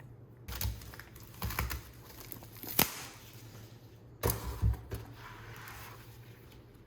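Album packaging and its inclusions being handled: paper and plastic rustling with irregular light taps and clicks, the sharpest click a little before the middle.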